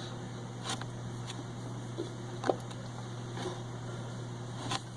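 Low steady background hum with a few faint, scattered clicks.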